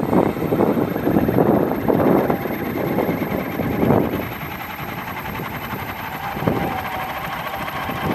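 Model autogyro's propeller motor and spinning rotor blades running during a prerotator test, with gusts of wind hitting the microphone. A steady whine comes in about six seconds in.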